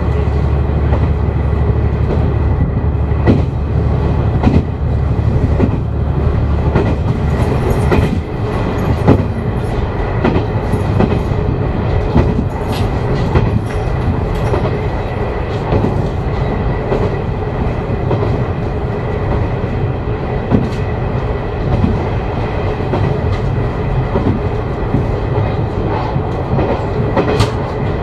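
Umisachi Yamasachi diesel railcar (JR Kyushu KiHa 125-400) running along single track, heard from inside at the end window: steady engine and running noise with irregular wheel clacks over rail joints. A deep engine drone is strong at first and drops away about six seconds in.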